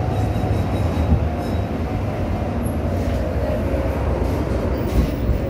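V3A-93 tram running along the rails, a steady low rumble of wheels on track.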